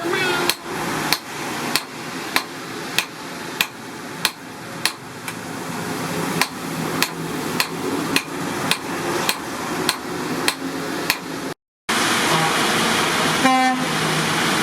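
Hammer blows on steel in a steady rhythm, about five every three seconds, typical of forging on an anvil. Near the end the hammering stops at a cut and a steady rushing noise takes over.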